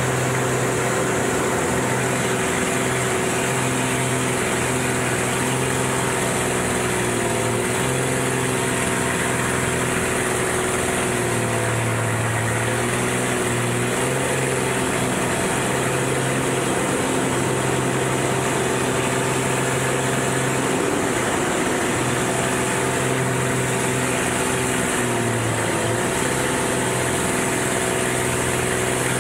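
Piston engine and propeller of an aerobatic monoplane running hard, heard from inside the cockpit with a rush of air noise. The engine note dips and recovers several times as the plane works through its manoeuvres.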